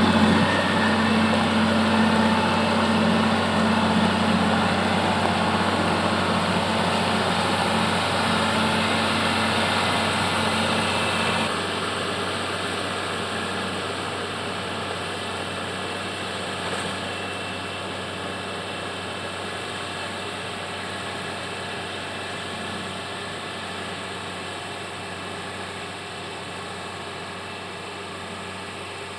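Diesel engine of a Komatsu GD 511A motor grader running steadily, growing gradually fainter with a small drop about a third of the way in.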